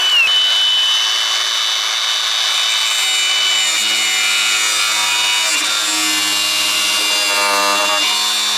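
Angle grinder running at speed and cutting: a steady high whine over a dense grinding hiss, its pitch dipping briefly just after the start and then holding.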